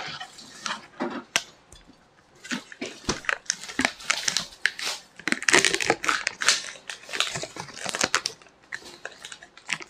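Plastic pudding cups being handled and their film lids peeled off and crinkled: a run of crackling and small clicks that starts a couple of seconds in, after a single sharp click.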